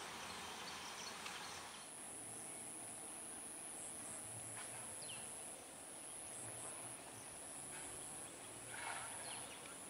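Faint rural ambience: a high, steady insect drone comes in about two seconds in, with a few short chirps over an even background hiss.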